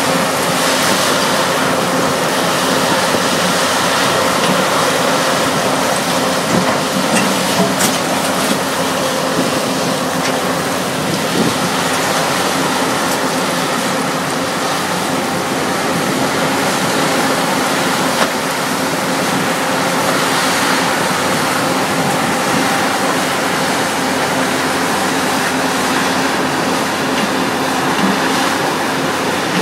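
Diesel engines of a McCloskey mobile crushing plant and a Doosan DX225LC tracked excavator running steadily under load, with rubble rattling through the machine. A few sharp knocks of stone stand out.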